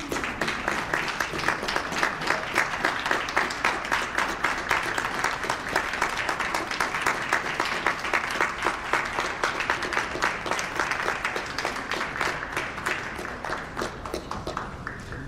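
Audience applauding, with sharp individual claps close by, tapering off near the end.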